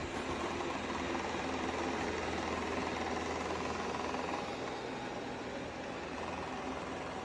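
Shark AI Ultra robot vacuum running, a steady whir of its suction motor and brushes with a faint hum.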